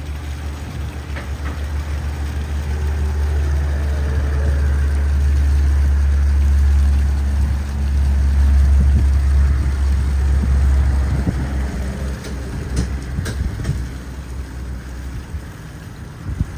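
A steady low motor rumble that swells to its loudest in the middle and fades over the last few seconds. A few light clicks come about three quarters of the way through.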